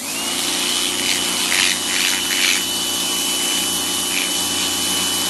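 An electric motor switches on, spins up and runs steadily with a high whine over a loud rushing hiss, used to strip the scales off a perch.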